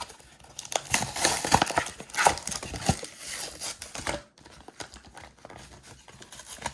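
A Pokémon trading-card blister pack being opened by hand: its plastic packaging and pack wrapper crinkling and clicking. The crackling is dense and loud for about four seconds, then goes on more softly.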